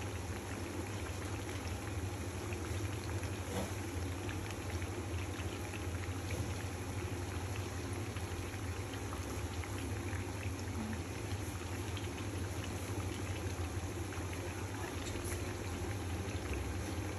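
Lentil-batter fritters deep-frying in a pan of hot oil: the oil sizzles steadily with small crackles and pops.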